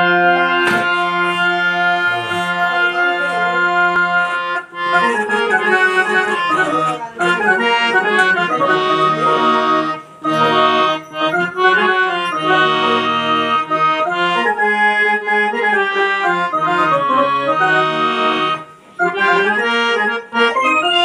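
Harmonium being played: a held chord over a low drone for about five seconds, then a melody in sustained, reedy notes with chords, with a couple of brief pauses.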